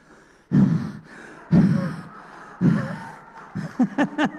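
A man breathing heavily into a handheld microphone: three loud huffing breaths about a second apart, then a quick run of short chuckles near the end.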